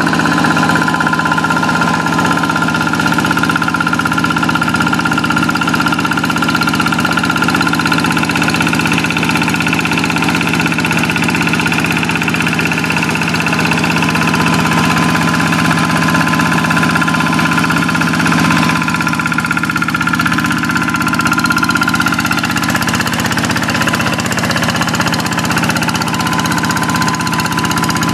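A Quick two-wheel hand tractor's single-cylinder Kubota diesel engine running steadily, pulling a plough through a rice paddy.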